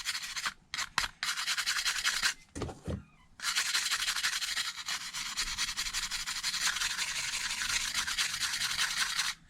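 A small brush scrubbing corrosion off the liquid-damaged logic board of a Samsung Galaxy Note 5 in quick back-and-forth strokes, making a dry, scratchy rasp. It breaks off twice in the first few seconds, then scrubs steadily and stops just before the end.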